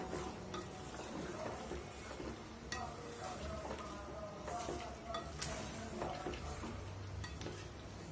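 Wooden spatula stirring and scraping chunks of meat and boiled potatoes around an aluminium pot, with irregular knocks against the pot. Under it is the sizzle of the meat frying down in its spices.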